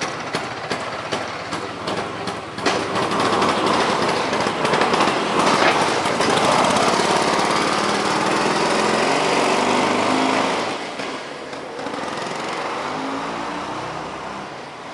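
Vespa 150 Sprint's single-cylinder two-stroke engine running with a pulsing idle, then revved up about three seconds in and held high. It drops back toward idle after about ten seconds.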